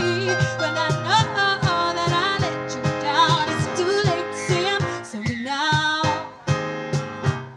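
Live duo: a woman singing, with held and sliding notes, over electric piano chords from a Nord Stage keyboard and a steady cajón beat.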